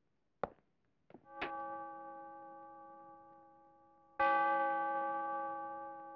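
A chiming clock striking: a short click, then two slow ringing strikes about three seconds apart. Each strike dies away slowly, and the second is louder.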